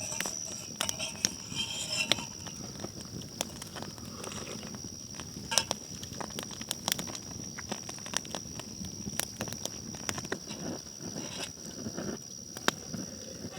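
Campfire crackling, with irregular sharp pops and snaps, over a steady high-pitched whine.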